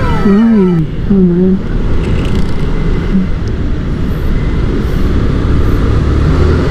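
Steady road traffic noise: a low, continuous rumble of vehicle engines and tyres.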